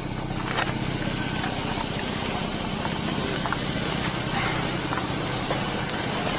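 Steady hiss over the low, even hum of idling patrol car engines, picked up on a police body camera.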